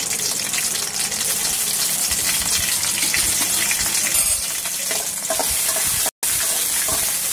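Green chillies sizzling in hot oil in an aluminium kadai: a steady frying hiss. From about five seconds in, a spatula stirs them, tapping and scraping against the pan.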